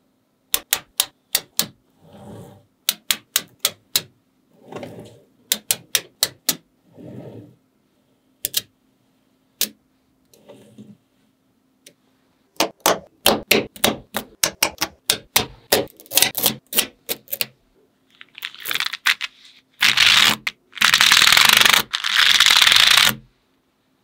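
Magnetic balls clicking sharply as they snap together, in single clicks and quick runs, with softer rolling and scraping sounds between them. Near the end a loud rattling rush lasts about three seconds.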